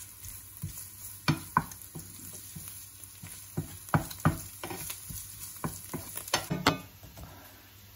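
Wooden spatula scraping and knocking against a frying pan as diced salted radish and garlic sizzle over high heat, in irregular stirring strokes. Near the end the sizzle and stirring stop.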